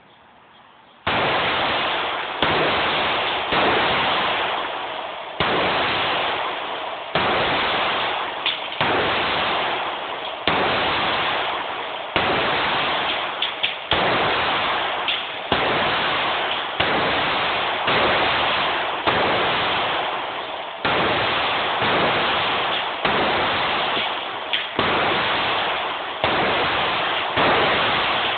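Springfield XD(M) 3.8 9mm pistol firing a long string of single shots, about one every one to one and a half seconds, each shot leaving a long ringing decay that runs into the next. Picked up on a phone microphone, which cuts off the high end.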